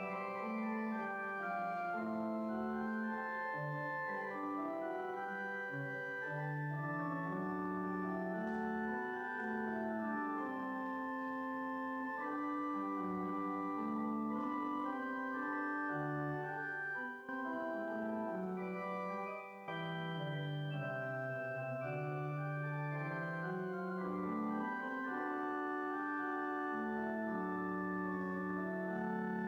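Church organ playing a slow piece in sustained chords over a moving bass line, with two brief breaks a little past the middle.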